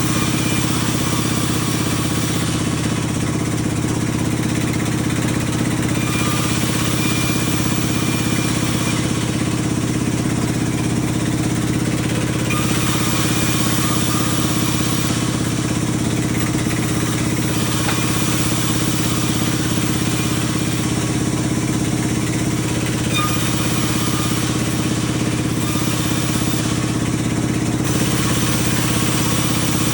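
Sawmill machinery running: a steady engine drone, with a higher hiss that comes and goes every few seconds.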